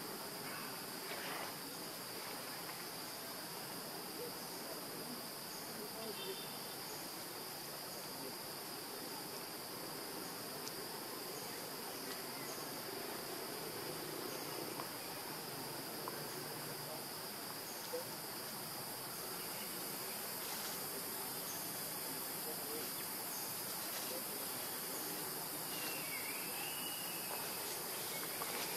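Steady high-pitched insect chorus, with a couple of faint short chirps over it.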